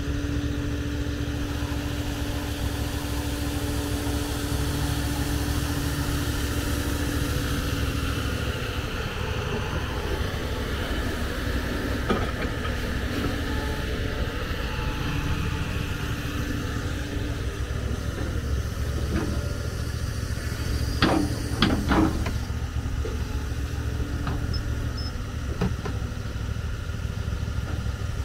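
John Deere 210G excavator's diesel engine running steadily, with a steady whine that stops about a quarter of the way in. A short cluster of sharp knocks comes about three quarters of the way through.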